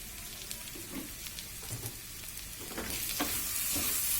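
Chicken pieces sizzling in a pan with very little oil, just dusted with roasted gram flour (sattu) to dry them out, while a spatula scrapes and stirs a few times. The sizzle grows louder about three seconds in.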